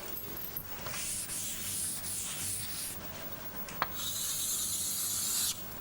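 A pen drawing on a writing surface: a run of short scratching strokes, a sharp tap about four seconds in, then one long continuous stroke of shading.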